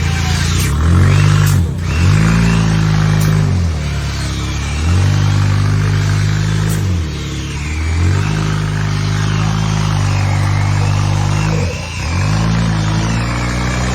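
An off-road 4x4's engine revving hard in repeated surges, about five times: the pitch climbs, holds, then drops away before the next burst of throttle.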